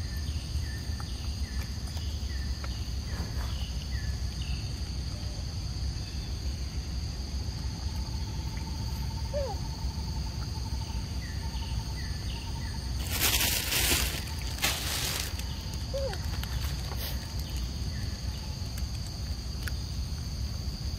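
Outdoor ambience: a steady high-pitched insect drone over a low rumble, with a few short chirps early on. About 13 and 15 seconds in come two loud, brief rushing noises.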